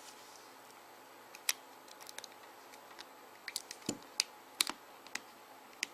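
Small, sharp plastic clicks and taps, irregularly spaced and bunched together about midway, as the plastic parts of a BlackBerry 9650 phone are handled and pressed into place during reassembly.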